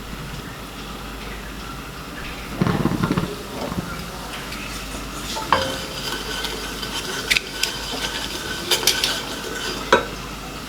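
Cooking in a metal pot: a utensil stirring and clinking against the pot several times over an oily sizzle, with a short low rumble about two and a half seconds in.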